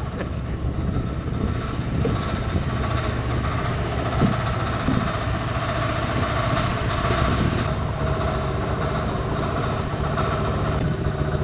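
A boat's engine running steadily, a constant hum over the noise of the open sea.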